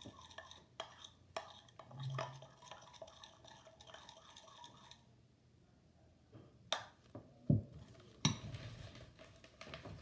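A utensil stirring slime mixture in a bowl, clinking and scraping against the sides: quick clicks at first, a quieter pause partway through, then a few louder knocks near the end.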